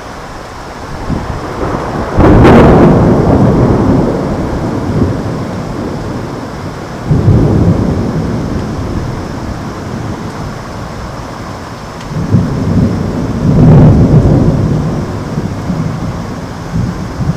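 Thunder from a nearby thunderstorm: a sharp clap about two seconds in that rolls into long, low rumbling, a second rumble swelling around seven seconds in, and a third peal building to a crack near the end, over steady rain.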